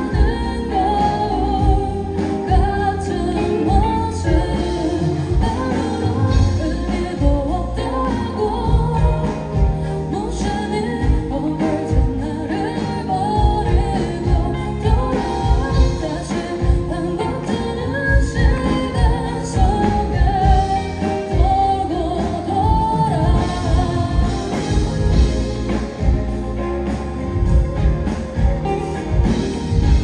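Live band music: a woman singing over electric guitar and drums. Near the end the singing gives way to the guitar.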